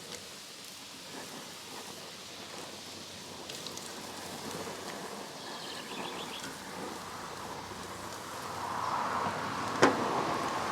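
Outdoor ambience with faint insect buzzing and a few faint high chirps. A single sharp click comes near the end, and a hiss swells in the last couple of seconds.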